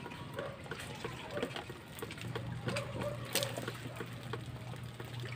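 Water poured from a plastic bottle into a hanging plastic-bottle planter, trickling in, with many small irregular clicks.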